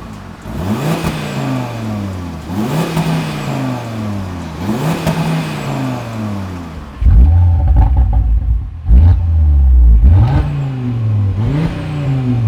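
Audi RS Q3's turbocharged five-cylinder engine blipped repeatedly from idle, about one rev every two seconds, heard through the stock exhaust. About seven seconds in the sound becomes much louder with a heavier low rumble, on the Milltek Sport particulate-filter-back exhaust.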